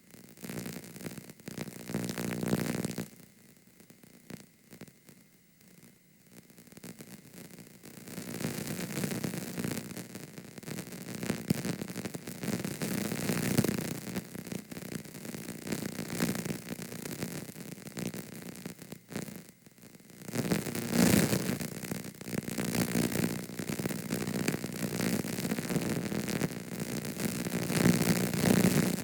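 Damaged VHS tape playback audio: crackling static and hiss with a distorted, wavering buzz that swells and drops out. It is quieter a few seconds in, cuts out briefly near two-thirds of the way through, then comes back louder.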